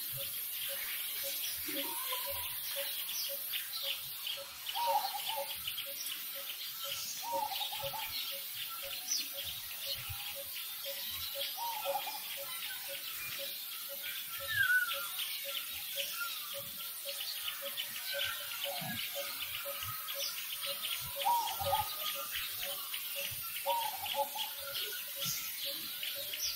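Outdoor bird chorus with busy chirping throughout. A steady pulsing note sounds about twice a second, and a short call recurs every two to three seconds.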